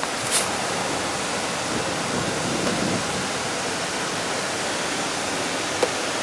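Steady rushing, hissing background noise spread evenly across the range, with a sharp click shortly after the start and a faint tick near the end.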